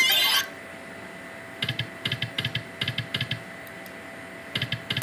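Video slot machine spinning its reels: short runs of rapid clicking as the reels go round and stop, after a brief win jingle cuts off at the start. A faint steady electronic tone sits underneath.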